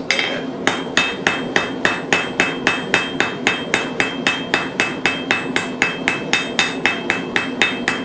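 Hand hammer striking a red-hot 5 mm bar on a steel anvil in a steady run of blows, about three a second, each with a bright anvil ring. The blows start a little under a second in.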